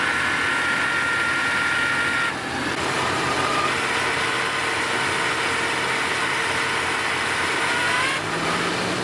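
LBZ Duramax 6.6-litre V8 turbodiesel running, with a failing idler pulley giving an off-and-on buzz or hum. A steady high whine over the engine drops out about two seconds in and returns fainter a couple of seconds later.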